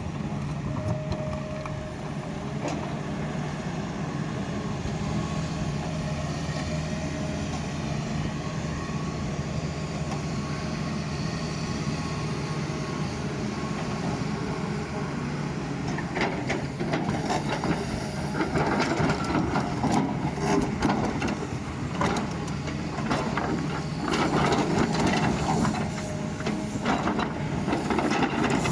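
Doosan excavator's diesel engine running steadily under load. From a little past halfway, a dense, crackling clatter of the bucket scraping and digging through soil comes in and swells and fades.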